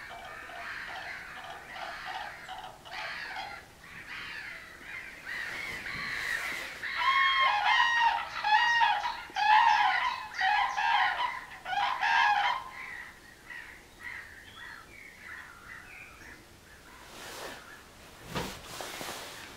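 A pair of common cranes calling at their nest: a quick run of repeated calls at first, then loud trumpeting duet calls from about seven seconds in, lasting about five seconds.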